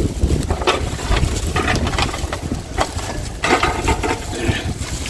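Wind buffeting the microphone, with a few scattered knocks and clatters of handling.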